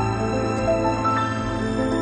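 Background music: slow, gentle new-age style instrumental with sustained notes.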